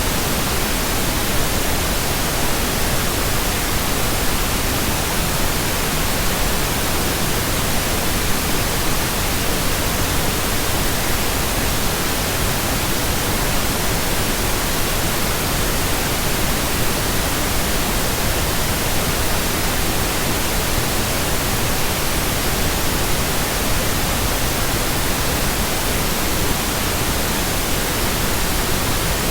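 Steady, electronically generated pink noise: an even, unchanging hiss spread across the whole range of pitch.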